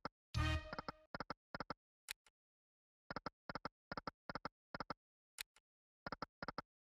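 Sound effects of the EGT Shining Crown online slot: a short chime as a spin begins, then quick runs of about five short pitched clicks as the reels stop one after another, spin after spin. There is no win jingle: these are losing spins.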